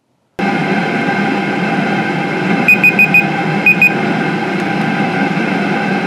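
Steady running hum of a 2 kW Chinese diesel air heater, its burn chamber modified to exhaust through an EGR cooler. A phone timer beeps four times quickly and then twice more, signalling the end of the 30-minute heating run.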